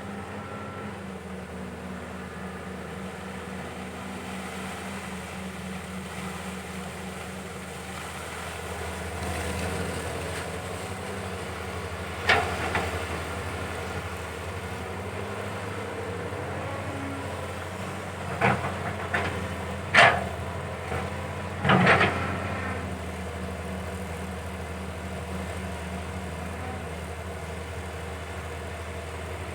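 CAT 320 excavator's diesel engine running steadily as it digs, rising briefly about ten seconds in. Several sharp knocks come between about 12 and 22 seconds in.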